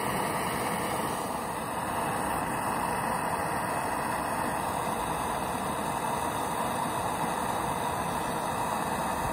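Hand-held propane torch burning with a steady, even rush of flame as it heats a rusted nut on a battery tie-down rod to free it.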